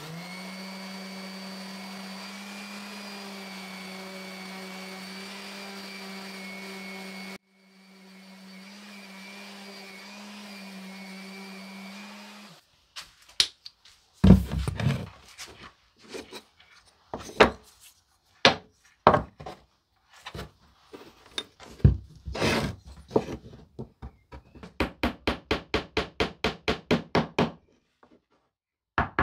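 Electric orbital sander running steadily, with a short break about seven seconds in, then stopping after about twelve seconds. Scattered knocks of wooden parts handled on a workbench follow, and near the end a fast run of light hammer taps, about six a second, from a ball-peen hammer driving bamboo dowels into a pine disc.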